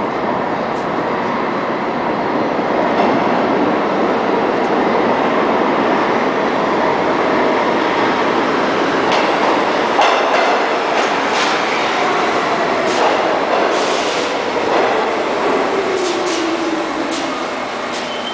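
New York City Subway train pulling into an underground station: a steady rumble of wheels on rail with many short clicks as the cars pass. In the second half a whine slides steadily down in pitch as the train brakes.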